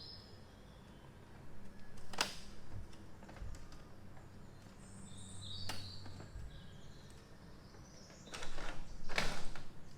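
Plastic clicks and knocks from the portable fan's front grill being handled and twisted to open and close. Separate clicks come about two and six seconds in, with a louder cluster near the end. Birds chirp faintly in the background.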